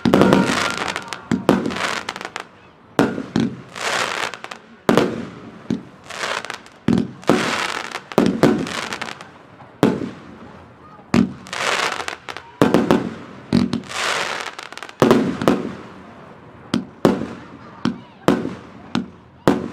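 Wolff 'Stars Over Barcelona' fireworks cake firing shot after shot, irregularly about one to two shots a second. Each shot is a sharp bang followed by a noisy tail of about half a second.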